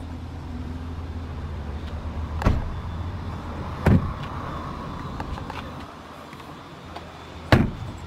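Three sharp knocks over a low steady hum as the interior of a 2015 Aston Martin Vanquish is handled; the last and loudest, near the end, is the car's door shutting.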